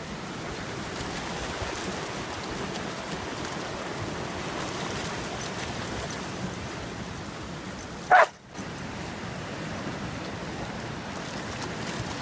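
Steady rush of a fast-flowing, flood-swollen creek, with one short, loud, high yip from a Samoyed puppy about eight seconds in.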